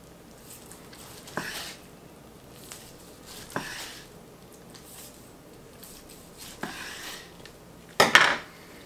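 Long slicing knife cutting through smoked brisket on a wooden cutting board: three separate strokes, each a sharp tap and a short scrape. Near the end comes a louder double knock as the knife is laid down on the board.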